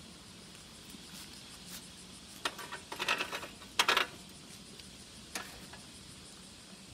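Faint outdoor street ambience, with a cluster of short clicks and rattles from about two and a half to four seconds in, and one more click a little later.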